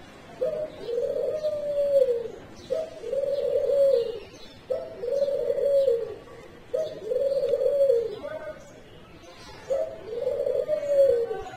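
Caged doves cooing: five long, low coos spaced about two seconds apart, each dropping in pitch at its end.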